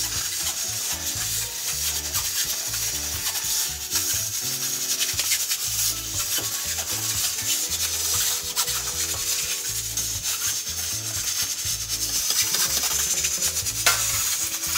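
Metal ladle stirring thick soup in an aluminium pot, scraping and knocking against the pot's sides and bottom.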